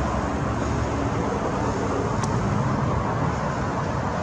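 Motor vehicle engine running steadily with road and traffic noise, with no change in level.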